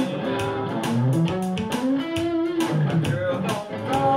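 Electric guitar playing an instrumental gospel shuffle over a steady beat, with a run of low notes climbing in pitch about a second in.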